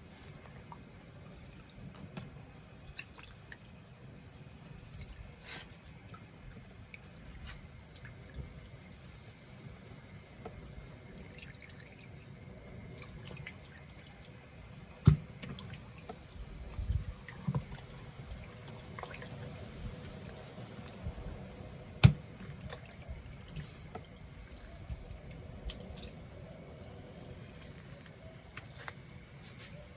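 Small liquid sounds, dripping and trickling, with scattered light clicks and two sharp knocks, one about halfway through and another a few seconds later.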